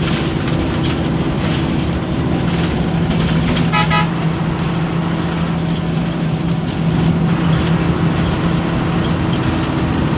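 Bus engine running hard at speed, heard from inside the cabin as a steady low drone with road noise. About four seconds in, a short, rapidly pulsing horn sounds.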